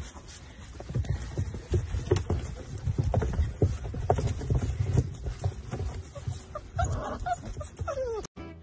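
A litter of puppies scrambling out of a plastic doghouse: an irregular run of soft thuds and scuffles from paws on the floor and wood-chip bedding, with a few brief squeaks from the puppies.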